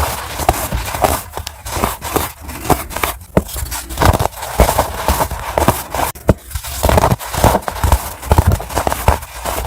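Pressed baking soda being snapped and crushed, giving a dense run of irregular crunches and sharp crackling snaps.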